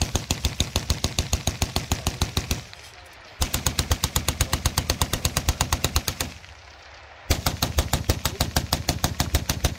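Vickers .303 water-cooled machine guns firing in rapid bursts. One burst is already running and stops about two and a half seconds in, a second runs from about three and a half to six seconds, and a third starts about seven seconds in and carries on.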